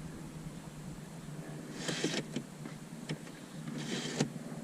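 Plastic cup holder in a BMW E92 dash trim sliding out and pushed back in: two short scraping slides with small clicks, about two seconds apart.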